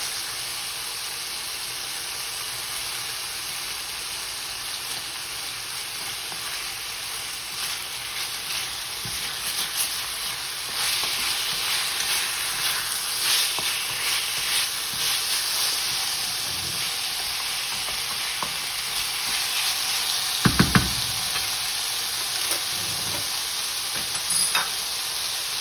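Chicken breast pieces sizzling in hot oil in a pan, stirred and scraped with a utensil. Three quick sharp knocks about twenty seconds in.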